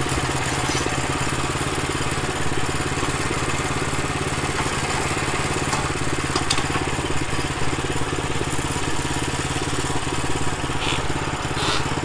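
Small gas engine of a Woodland Mills bandsaw sawmill idling steadily, with a couple of short knocks near the end.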